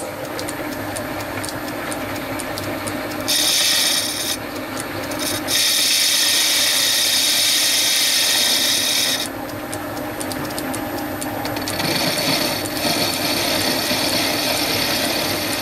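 Small metal lathe running with a cutting tool taking a skim cut across the face of a cast model-engine wheel: a steady motor hum under a hissing cut that comes and goes, strongest for a few seconds from about five seconds in and again near the end.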